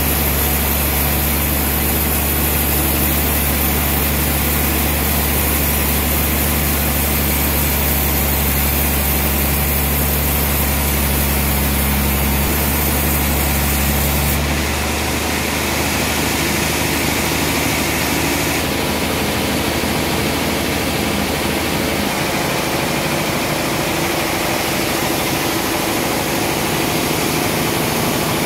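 Band sawmill machinery running steadily, a loud continuous mechanical hum with a low drone. The low drone changes pitch about twelve seconds in and again a couple of seconds later.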